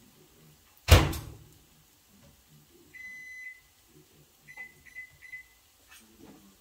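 A loud knock about a second in, then an electronic kitchen appliance beeping at one pitch: one half-second beep, then a quick run of short beeps.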